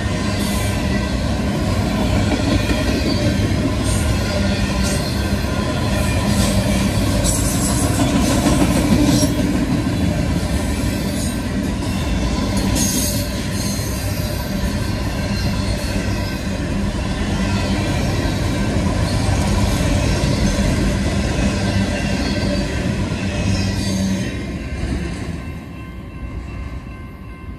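A freight train's autorack and boxcars rolling past: a steady rumble and clatter of steel wheels on the rail, with brief high-pitched wheel squeals. The sound fades near the end as the last car goes by.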